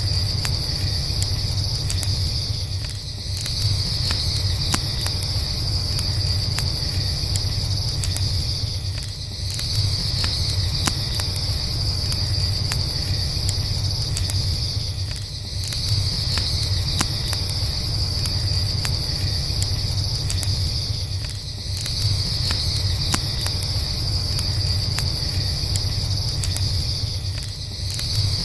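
Night chorus of crickets chirping steadily, swelling and easing about every six seconds, over a crackling campfire: scattered sharp pops and snaps above a low rumble.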